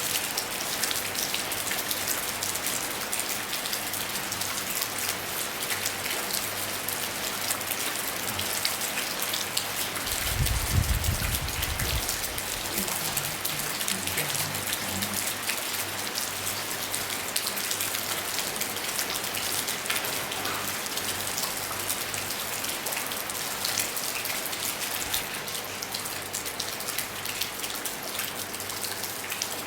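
Steady rain falling on a roof: a dense, even patter of drops. About ten seconds in, a low rumble lasts about two seconds.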